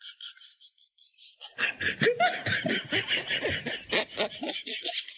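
Faint close-up crackle of a chicken leg being chewed, then from about one and a half seconds in a run of quick, snickering laughter that stops shortly before the end.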